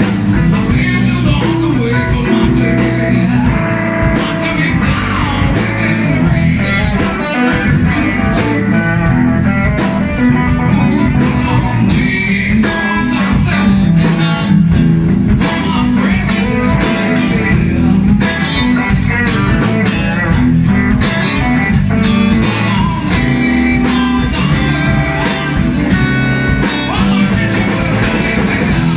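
Live blues-rock band playing: electric guitars, bass guitar and a drum kit keeping a steady beat, with a woman singing into a microphone.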